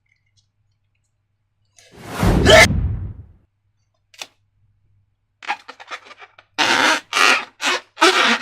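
Slime being handled: one loud wet squelch about two seconds in, a single click, then a run of short squishing, scraping strokes near the end.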